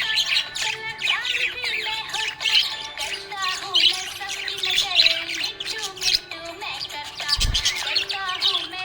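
Budgerigar chirping and chattering rapidly, mixed with background music that carries a stepped melody. A short low thump about seven and a half seconds in.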